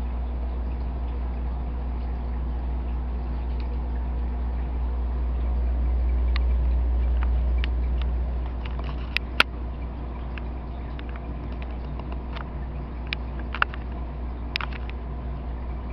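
Steady low hum of running aquarium equipment, such as a filter pump. From about six seconds in, about a dozen irregular sharp clicks and taps come over it, the loudest two near the middle and a little before the end.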